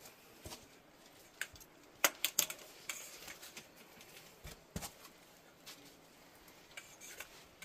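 Scattered sharp clicks, taps and scuffs of people clambering over rock and gravel, with a quick cluster of louder knocks about two seconds in.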